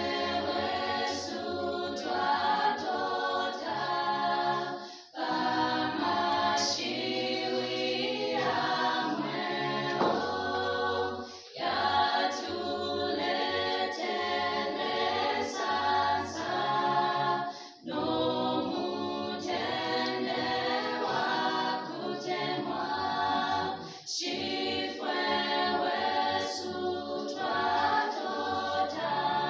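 Small mixed group of voices singing a cappella in harmony, with no instruments. The song runs in long phrases of about six seconds, with short breaks for breath between them.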